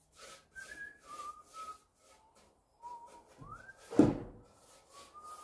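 A man whistling a slow tune while brushing stain onto a wooden deck, the brush rasping in short repeated strokes that pause in the middle. About four seconds in there is a single sharp knock, the loudest sound.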